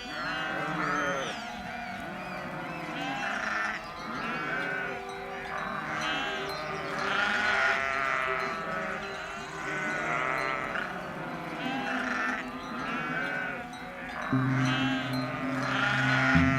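Sheep bleating over and over, several calls overlapping, a new bleat every second or two. A low steady hum comes in near the end.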